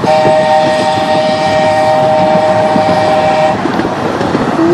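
Miniature steam locomotive's whistle blowing a long, steady chord of several notes, with a brief break right at the start. It cuts off sharply about three and a half seconds in, over the noise of the train running.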